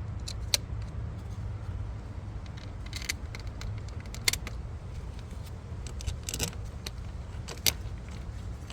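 Scattered metallic clicks and clinks, about five sharper ones spread through, as bolts are handled and started by hand into the PCV valve housing, over a steady low hum.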